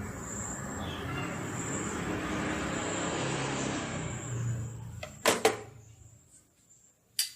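A motor vehicle passing, its engine and road noise swelling over about four seconds and then fading. Two sharp clicks come about five seconds in, and another near the end.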